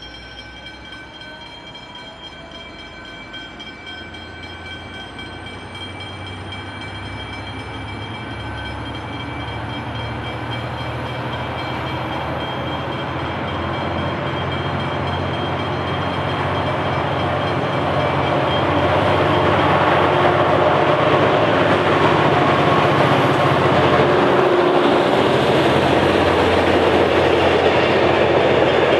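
V/Line N class diesel locomotive, with a turbocharged GM-EMD 12-645E engine, pulling a passenger train away from a standstill and growing steadily louder as it comes closer, with a thin high whine rising in pitch over the first fifteen seconds or so. Near the end the carriages roll past close by, with wheels running on the rails.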